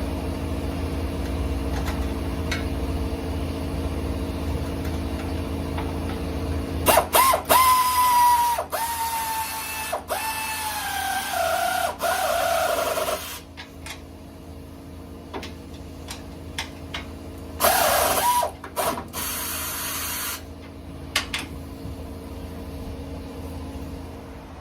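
Electric drill-driver running a bolt in for about six seconds, its whine falling in pitch as the motor slows under load, then a second, shorter run a few seconds later, with clicks between. It is driving the rack-and-pinion mounting hardware.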